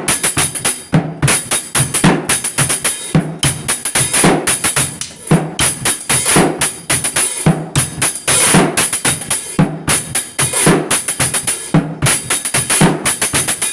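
Drums played in a fast, busy rhythm of many strikes a second, with no let-up.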